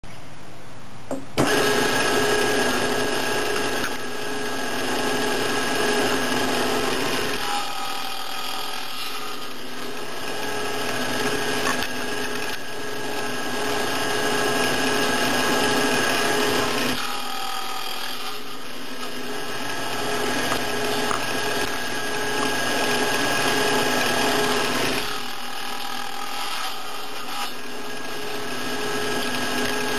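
Table saw running steadily while its blade cuts the corners off wooden blanks on a crosscut sled. The sound shifts three times, around 8, 17 and 25 seconds in, as the blade goes through the wood.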